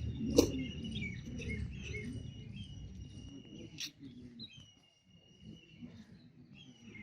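Small songbirds chirping and whistling, a string of thin high notes about a second long each, repeating. A sharp click comes about half a second in and another about four seconds in.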